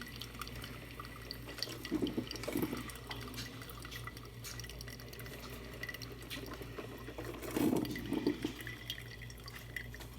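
Philips drip coffee maker brewing: water gurgling and sputtering through the heater and dripping, with scattered small pops and two louder gurgles about two and eight seconds in, over a steady low hum.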